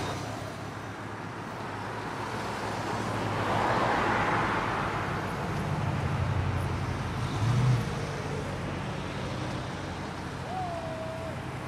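Classic cars driving past one after another, engine and tyre noise swelling as each goes by, with a lower engine rumble from one car about six to eight seconds in.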